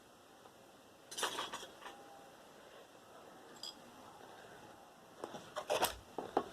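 Small metal parts of a desktop computer clinking and clattering as they are handled, in a short burst about a second in and a longer run of clicks near the end.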